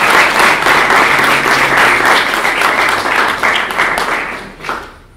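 A group of people applauding, the clapping dying away near the end.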